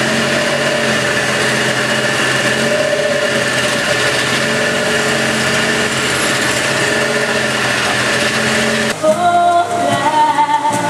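A tuk-tuk's small motorcycle engine running steadily while it rides in traffic. About nine seconds in it cuts off suddenly to a live band playing, with singing and guitars.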